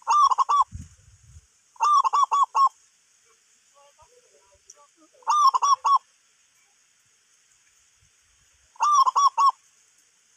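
A bird calling four times, each call a quick run of four or five short arched notes, loud and close.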